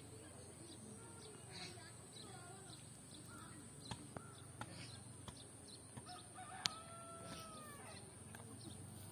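A rooster crowing once, faint, a little over two-thirds of the way in, against quiet rural ambience with a steady high hiss and a few small clicks.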